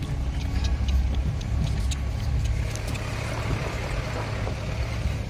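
A Mahindra Bolero driving slowly over a rough gravel and rock track, heard from inside the cab. A steady low engine drone runs under scattered sharp clicks and rattles as the tyres roll over stones. A rougher crunching noise swells in about three seconds in.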